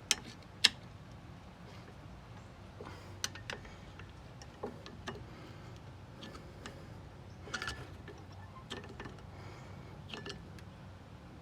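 Scattered sharp metallic clicks and taps of hand tools and a brake pad worked against a Brembo six-piston brake caliper, the two loudest clicks within the first second, over a low steady hum.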